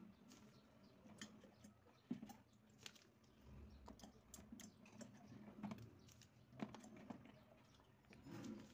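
Green olives dropped one by one into a plastic water bottle partly filled with water: faint, irregular clicks and taps, a few of them sharper.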